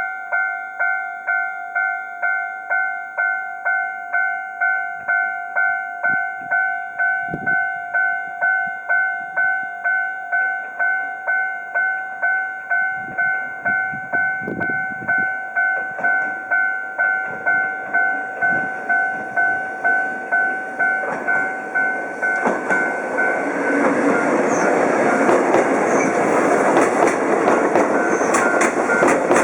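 Japanese railway level-crossing alarm ringing in a steady two-tone rhythm of about two strokes a second. About 22 seconds in, a Choshi Electric Railway train runs over the crossing, its rumble and clatter building and staying loud to the end while the alarm keeps ringing.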